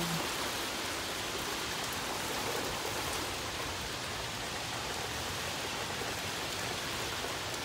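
Heavy rain pouring down, a steady, even hiss of downpour in a thunderstorm.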